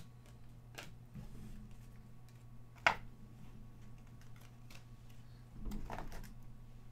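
Trading cards and cardboard card boxes being handled on a table: scattered light clicks and taps, the loudest a sharp click about three seconds in, then a short cluster of knocks near six seconds. A steady low hum runs underneath.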